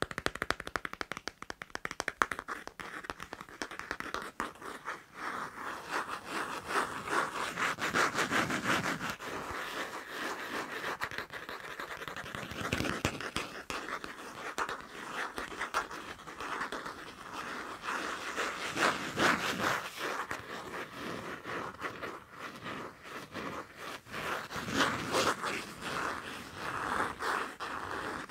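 Fast scratching and tapping on a passport: a quick run of sharp taps at the start, then continuous rapid scratching that swells louder every few seconds.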